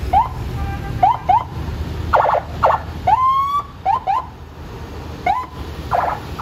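Vehicle siren giving short rising whoops, several in quick pairs, with one longer rising wail about three seconds in and a few short buzzy blasts, over the low rumble of a heavy truck's engine.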